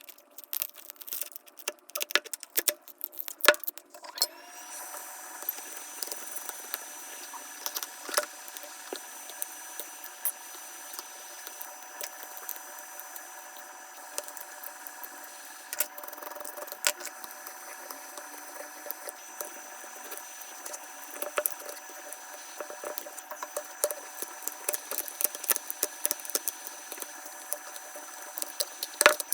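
Repeated small clicks, taps and scrapes of hand tools working on a phone. About four seconds in, a steady high machine whine starts and keeps on underneath.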